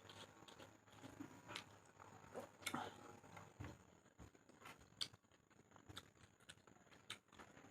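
A person eating pork at close range: faint chewing and wet mouth sounds, with scattered soft clicks at irregular intervals.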